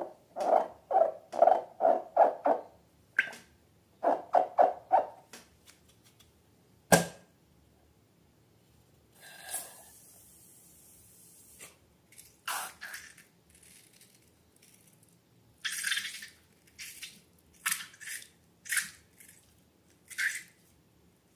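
Handling noises from slime and balloons. There is a quick run of short pulses at the start and four more about four seconds in, then a single sharp snap about seven seconds in, followed by scattered short crackly squelches.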